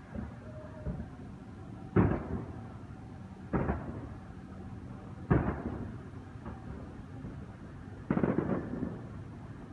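Aerial firework shells bursting: four loud booms spread across a few seconds, each trailing off in a rumble, with a couple of smaller pops near the start and a brief crackle on the last.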